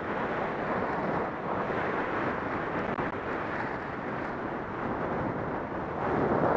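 Wind rushing over a helmet-mounted camera's microphone while skiing fast downhill, mixed with the steady hiss of skis carving on groomed snow; it swells near the end.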